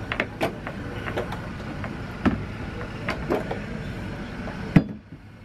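Scattered knocks and clunks from a small outboard motor being handled and set against the boat's fittings, over a steady background noise. The loudest knock comes near the end, and the background then falls away.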